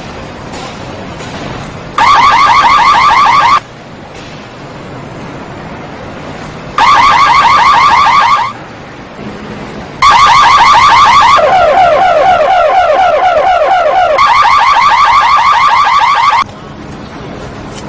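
Car alarm going off in bursts of a rapid, high chirping warble: two short bursts of about a second and a half, then a longer run of about six seconds that drops to a lower warble partway through and climbs back before cutting off.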